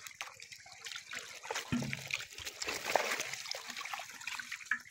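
Shallow water splashing and sloshing around a net and a plastic fish crate, with a dull thump a little under two seconds in.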